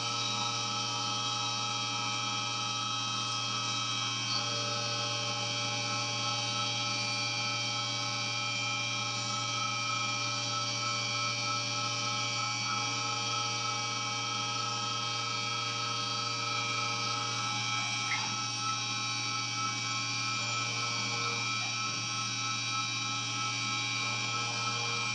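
Syil X7 CNC milling machine cutting a metal block, with the spindle turning an end mill under flood coolant. It makes a steady machining whine of several held tones.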